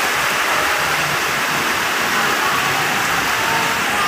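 Heavy rain pouring down onto a flooded road: a steady, even rush of water.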